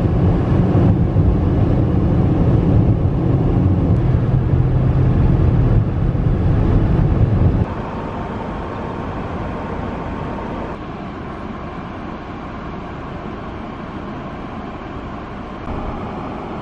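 Road and tyre noise inside a moving car's cabin at highway speed, a loud low rumble. About seven and a half seconds in it cuts to a quieter, steady hiss of outdoor ambience.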